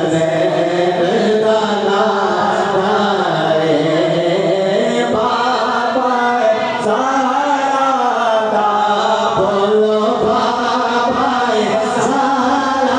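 A voice chanting devotional Islamic poetry (naat) in long, drawn-out melodic phrases, over a steady low drone.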